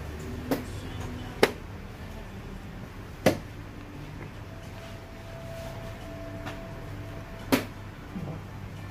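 Four sharp clicks a few seconds apart, the second and third loudest, from rapid chess play: wooden pieces set down on the boards and chess clocks pressed. Under them runs a low steady hum, and a faint steady tone sounds for about three seconds in the second half.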